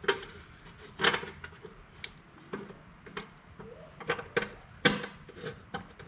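Irregular sharp metal clicks and clinks, roughly one or two a second, as new bolts and nylock nuts are fitted on a Troy-Bilt Squall 2100 snowblower.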